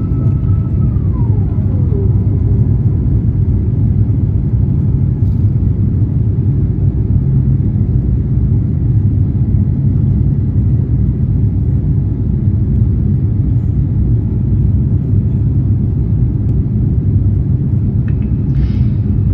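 Steady low rumble of an Airbus A350's engines and airflow heard from inside the cabin during the takeoff, with a faint tone gliding down in pitch in the first couple of seconds.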